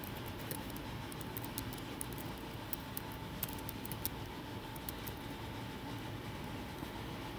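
Computer keyboard being typed on: faint, irregular key clicks over a steady background hiss with a faint hum.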